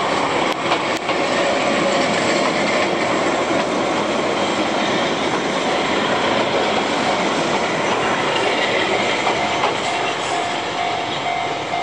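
Keihan 600 series two-car train passing close by, with steady running noise and its wheels clacking over the rail joints. A steady high tone joins about nine seconds in.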